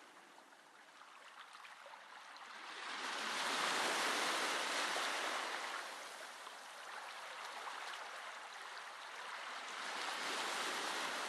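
Gentle ocean waves washing in on the shore. The surf swells and falls away twice: the first and louder wave comes a few seconds in, the second near the end.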